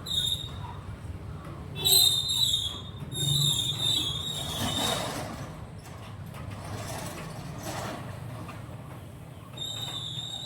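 Parakeets giving harsh, high screeching calls: a short one at the start, a cluster about two to four seconds in, and another near the end.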